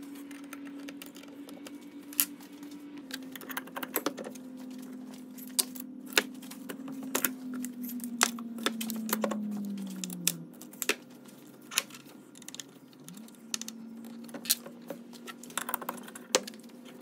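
Steel parts clinking and knocking as a drawbar rod, shaft collars and pins are handled and fitted on a wooden workbench: many short, sharp clicks at irregular intervals. Under them runs a steady low hum that sinks in pitch about eight to ten seconds in and comes back up about three seconds later.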